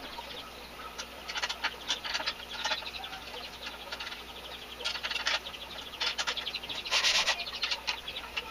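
Irregular small metal clicks, squeaks and scrapes from an Allen wrench turning the screws and from the work support plate being fitted to the sander's frame. There is a denser run of clicks and scraping about seven seconds in.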